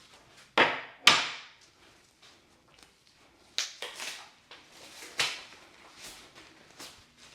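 Sharp knocks and thuds on a chiropractic treatment table. Two loud ones come close together about half a second and a second in, then several softer ones follow at uneven intervals.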